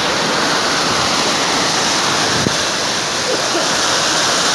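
Fast-flowing floodwater rushing down a street: a loud, steady rush of water.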